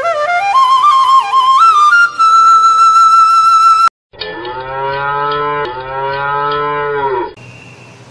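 A flute melody climbing in steps to a long held high note, stopping abruptly; then, after a brief gap, a cow mooing twice in long, low calls.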